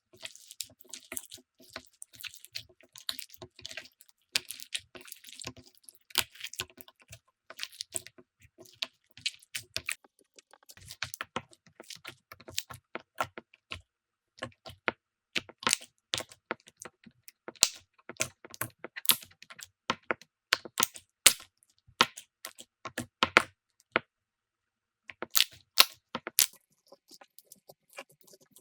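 Slime being squeezed and pressed by hand, giving dense, irregular crackling and popping clicks. The clicks stop for about a second around two-thirds of the way through, then start again.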